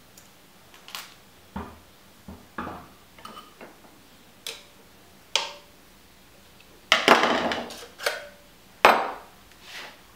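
Small metal fork parts and a hex key clicking and knocking as they are handled and turned, a few light ticks at first, then a longer clatter and a sharp knock in the second half.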